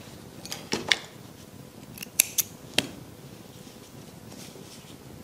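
Scissors snipping yarn on a crocheted piece: a few short sharp snips, two just under a second in and three more between two and three seconds in.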